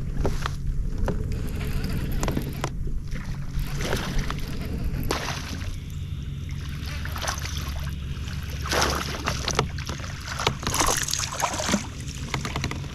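Clicks, knocks and rustling of handling on a kayak while a hooked spotted bass is reeled in and landed, over a steady low hum, with a few longer noisy bursts about five, nine and eleven seconds in.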